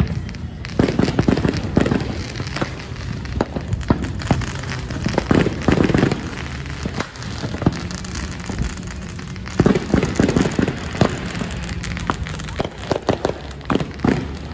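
Fireworks crackling and popping: rapid sharp pops in several dense bursts, one after another.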